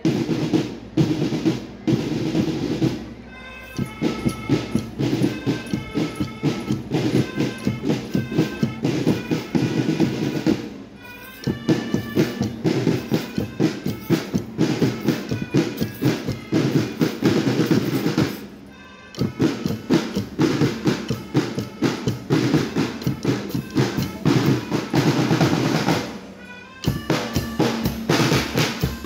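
A school marching band of drums and melodicas playing. Snare and bass drums beat a steady march under a melody of short held notes. The playing drops off briefly between phrases, about every eight seconds.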